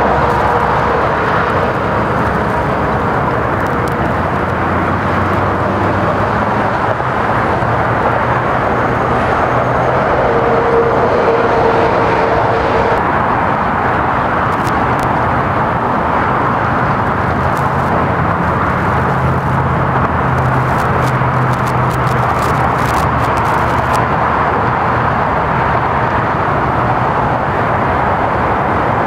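Steady, continuous noise of freeway traffic, the rush of tyres and engines passing without a break.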